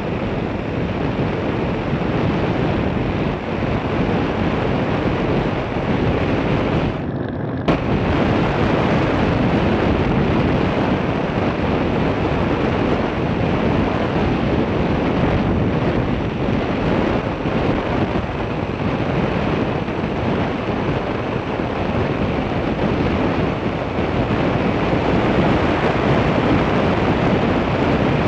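Steady wind rush over the microphone of a camera moving along a road, mixed with road noise. The rush drops away briefly about seven seconds in and comes back with a knock.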